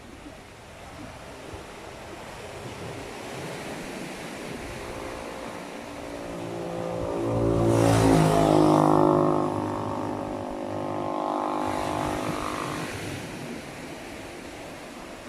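A motor vehicle drives past on the road. Its engine grows louder, is loudest about eight seconds in with the pitch shifting as it passes, swells again briefly, then fades. Surf washes steadily underneath.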